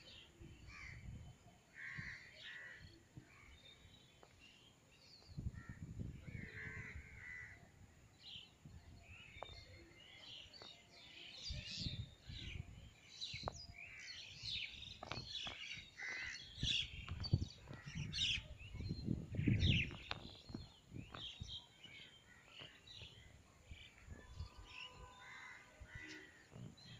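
Outdoor birds calling and chirping: many short calls, busiest through the middle, over repeated bursts of low rumble, the strongest about two-thirds of the way in.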